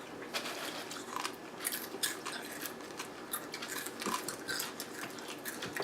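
People chewing crunchy food: a loose run of small, irregular crunches and clicks.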